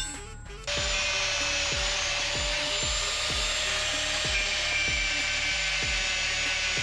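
Handheld electric angle grinder starting up about a second in and cutting a flat steel piece, a steady grinding noise with a constant whine. Background music with a regular beat plays underneath.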